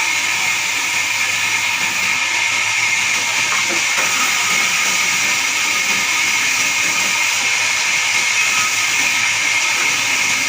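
Horizontal band sawmill cutting a pine log: a loud, steady hiss and whine from the blade running through the wood, over the motor's even running.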